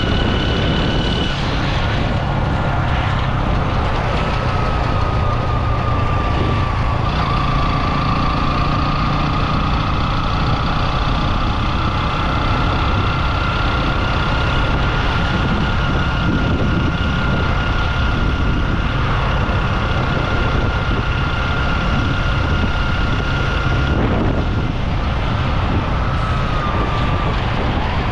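Strong wind buffeting the microphone in a loud, steady rumble, with a thin steady high whine over it that dips slightly in pitch twice.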